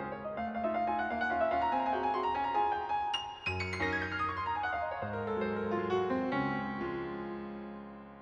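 Background piano music: a gentle piece of single notes and chords, with a falling run of notes about halfway through, fading out near the end.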